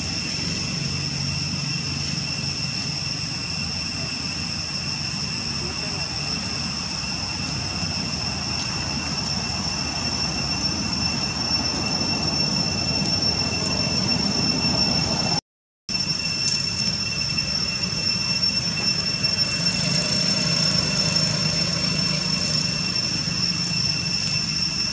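Steady outdoor insect drone: a continuous high-pitched buzz over a low rumble. The sound cuts out completely for a moment about fifteen seconds in.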